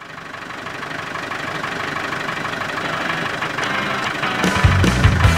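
Land Rover Defender's 300Tdi 2.5-litre four-cylinder turbodiesel idling, fading up from silence and growing steadily louder. A heavy bass beat comes in about four and a half seconds in and becomes the loudest sound.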